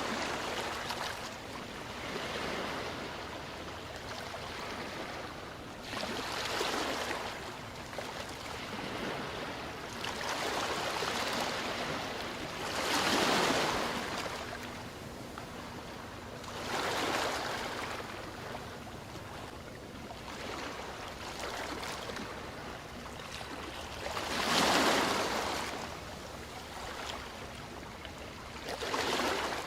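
Ocean surf: waves breaking and washing in, the sound swelling and fading every few seconds, with two louder breakers, one near the middle and one near the end.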